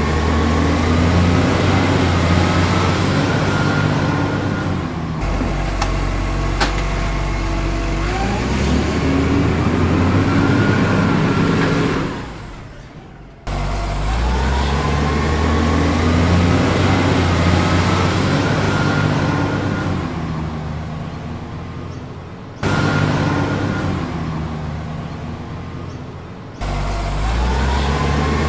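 Heavy vehicle engine running and revving, with a rising whine at each rev. The sound breaks off and starts again abruptly three times.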